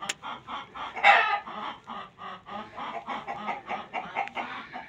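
Chickens clucking in a fast run of short calls, with one louder call about a second in.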